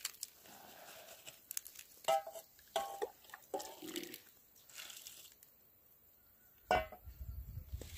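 A metal bowl clinks and scrapes against the rim of a large pot while wet crushed fruit mash is tipped into a cloth strainer bag and dark juice is scooped out, with rustling of the cloth. A few short ringing clinks come around the middle, and the loudest clank comes near the end.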